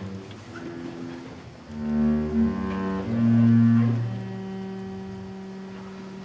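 Solo double bass bowed live, playing a few sustained notes. The loudest is a low note about three seconds in, followed by one long held note that slowly fades.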